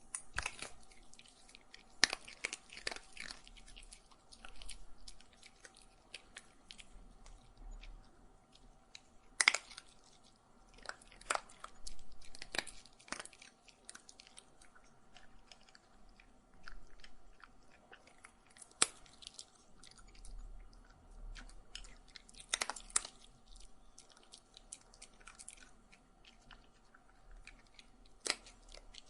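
A dog eating, chewing and crunching food in irregular bouts of crisp crunches and clicks with short pauses between them.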